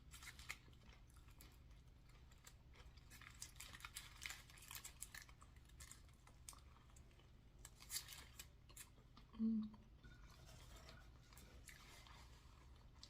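Faint chewing and crunching of a fast-food burger and fries, with small wet mouth clicks, and a short low hum about nine and a half seconds in.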